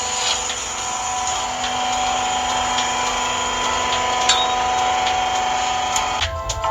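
Hydraulic press running with a steady machine whine while it presses a hammerhead onto its shaft, with a few light clicks. A lower hum joins about a second in and stops shortly before the end.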